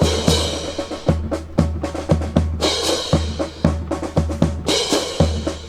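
Percussion rhythm of drums, with deep bass-drum beats about twice a second and sharp snare and rim strikes.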